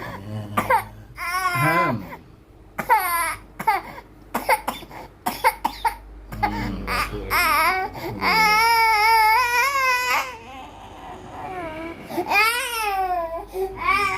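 A baby with a sore throat coughing and crying in short bursts, with one long, loud wailing cry about eight seconds in.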